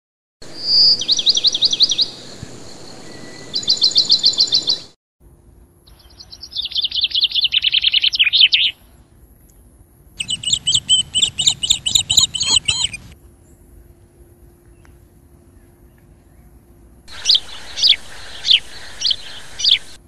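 Birds singing in four separate bursts that cut in and out abruptly: two fast trills of repeated high notes, then a rapid run of notes falling in pitch about eight seconds in, a steady series of repeated notes from about ten to thirteen seconds, and a few sharp chirps near the end.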